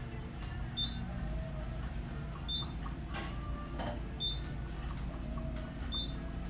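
Urban traction elevator car travelling upward with a steady low ride rumble. A short high beep sounds each time it passes a floor, four beeps evenly spaced about 1.7 seconds apart.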